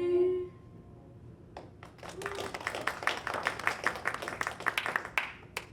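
A sung note held by a folk singer dies away at the start. About a second and a half later a small audience breaks into applause, the claps distinct rather than a solid wash, and it tails off near the end.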